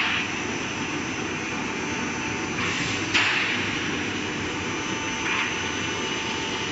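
Steady factory machinery noise from a steel pole production line running, with a faint high whine. A short hiss ends in a sharp knock about three seconds in.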